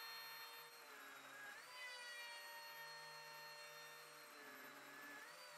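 Lamello Zeta P2 slot-cutting machine running with a faint, steady whine. Its pitch sags and recovers twice, about a second in and again near the end, as the cutter is plunged into the panels to cut P-System connector slots.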